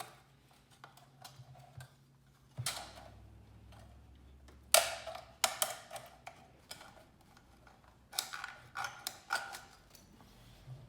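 Scattered sharp clicks and knocks of metal parts being handled on a Rockwell Porta Band 725 portable bandsaw during teardown, just after its blade has been taken off. The loudest knock comes about five seconds in, and a faint steady low hum runs underneath.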